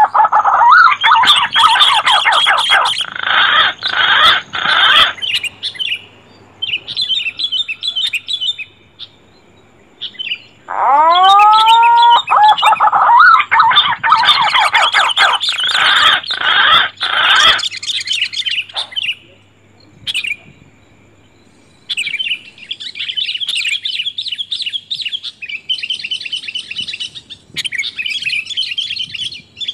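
Looped bird-lure recording of punai green pigeons and kutilang sooty-headed bulbuls calling. A rising whistled call leads into a few seconds of loud, dense chirping, and the cycle repeats about 11 seconds later. Quieter rapid chirping trills follow in the last third, over a faint steady hum.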